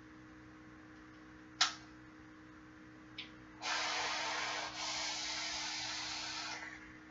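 A sharp click about a second and a half in, then a short hiss, then about three seconds of steady rushing hiss: a long lung draw through a 36 mm Obese Buddha RDA as its 24-gauge Kanthal coils fire.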